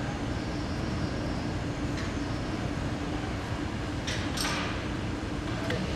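Steady machine-hall background noise from a CNC machine factory floor: a constant low hum with a brief hiss about four seconds in.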